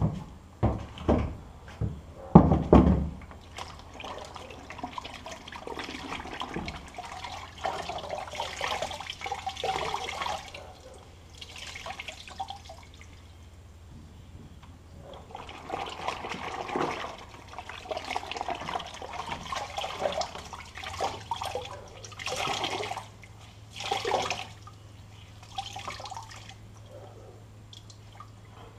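A towel being rinsed and wrung out in a plastic bucket of water: water sloshing and splashing in repeated spells. A few heavy knocks in the first three seconds, the loudest about two and a half seconds in.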